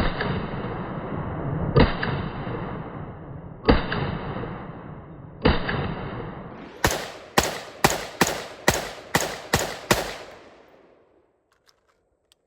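5.56 mm AR-15 gunfire. There are four single shots about two seconds apart, each followed by a ringing tone. Then comes a quick string of eight shots about half a second apart, and the echo dies away about a second after the last.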